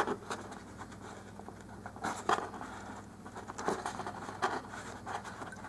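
Faint handling noises from fingers twisting the fine wires of a dollhouse ceiling light: scattered light scratches and small ticks.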